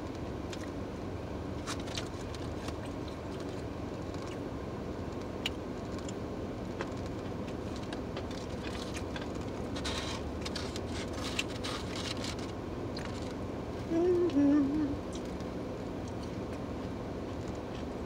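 Person eating fried fish by hand from a takeout container: chewing and mouth clicks with paper rustling, over the steady low hum of a car interior. A short hummed vocal sound about fourteen seconds in.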